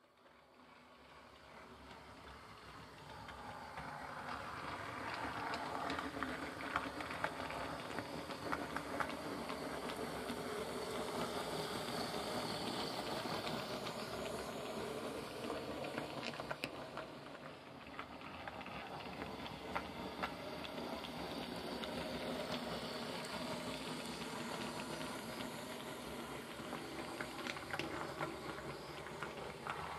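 Model OO diesel locomotive, a Hornby RailRoad Class 31, running under analog DC with no sound decoder fitted: a steady whirr from its motor bogie, with wheels clicking over rail joints and pointwork. It grows louder over the first few seconds as it approaches.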